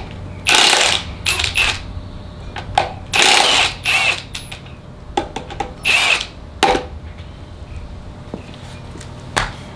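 Cordless impact wrench hammering in three short bursts as it spins loose the connecting-rod cap bolts on the bottom end of an LS V8 block, with a few sharp metal clinks between the bursts and near the end.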